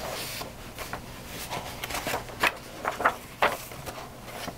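Pages of a paperback workbook being flipped one after another: about half a dozen brief papery swishes.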